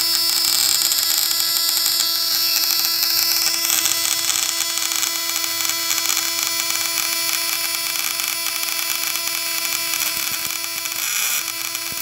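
Homemade high-voltage shocker buzzing steadily: the contact-breaker points (platina) chatter as they interrupt the 12 V battery current through the coil, with a hissing crackle over the buzz. The buzz falters briefly near the end.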